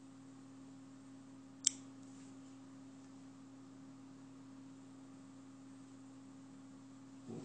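Quiet room tone with a steady low hum, broken by one sharp click about a second and a half in and a dull knock near the end.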